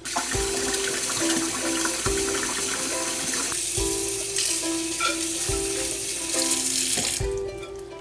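Kitchen faucet running into a sink as dishes are rinsed, a steady rush of water that shuts off near the end. Light ukulele music plays over it.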